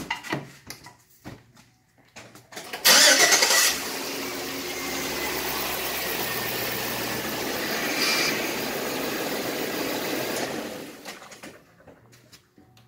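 2004 Chevy Tahoe's V8 cranked and started about three seconds in, then idling steadily for about seven seconds before being switched off.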